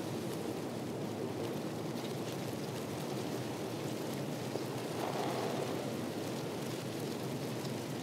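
Steady rushing outdoor ambience with no distinct events, swelling slightly about five seconds in.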